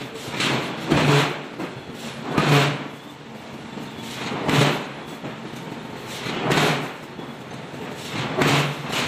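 Heavy forging machinery working a red-hot steel block: a rushing, knocking mechanical sound that swells and fades about every two seconds.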